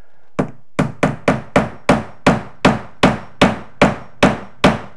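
Steel hammer tapping about thirteen times, roughly three strikes a second, on a finish nail held as a makeshift nail set, each strike metal on metal with a short ring. It is setting a finish nail's head just below the surface of wood door trim.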